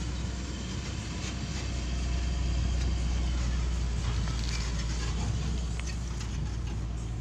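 Heavy diesel dump truck engines running with a steady low hum, swelling slightly partway through.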